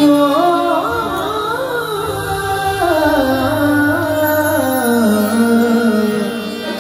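A male voice sings one long, ornamented ghazal phrase that climbs briefly and then winds slowly downward, over sustained harmonium tones.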